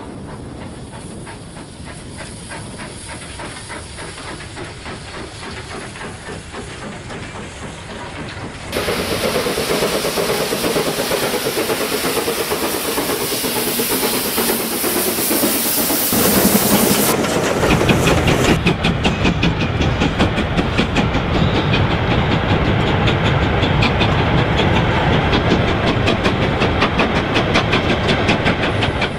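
Steam train sounds. A train runs along the track at first. About nine seconds in, a loud steady hiss of escaping steam starts suddenly. In the second half a fast even rhythm of beats runs under the hiss.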